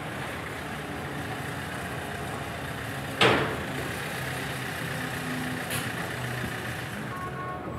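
Hyundai Accent sedan's engine running slowly and steadily as the car pulls into a garage bay and onto the ramp. A sudden loud burst sounds about three seconds in.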